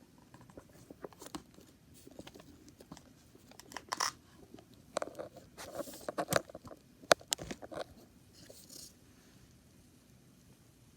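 Scattered clicks, taps and rustling of hands handling objects close to the microphone, busiest in the middle with one sharp click about seven seconds in, then going quiet for the last couple of seconds.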